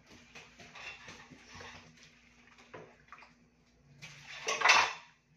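Dishes being washed by hand in a kitchen sink: water splashing and dishes clinking, with a short, much louder rush of water about four and a half seconds in.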